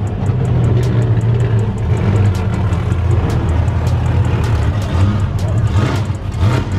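Car engines running at idle with a loud, steady low rumble.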